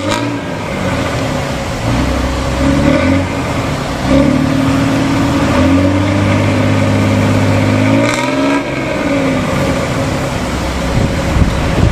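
Diesel engine of an old front-engined Hino bus fitted with a 'ngorok' growling exhaust, being revved. The engine note steps up about four seconds in, holds, then swells and drops again just after eight seconds.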